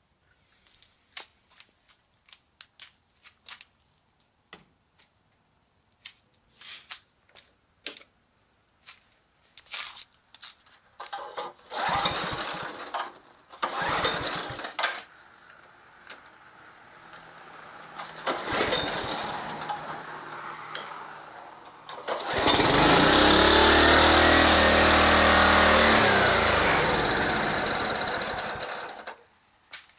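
Honda HRC 216 HXA walk-behind lawn mower: a series of clicks and rattles, then a few short pull-cord pulls, then the engine catches about twenty-two seconds in, runs loudly for about seven seconds and cuts off.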